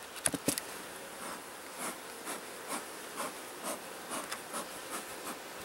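Honeybees buzzing around an opened nuc box, with a few sharp clicks about half a second in and then a run of soft puffs about two a second from a bee smoker's bellows.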